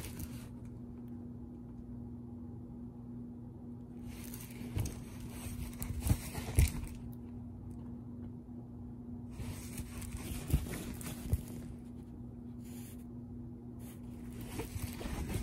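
Rustling and crinkling of a diamond painting canvas and its plastic cover film being handled, in three spells with a few soft knocks, over a steady low hum.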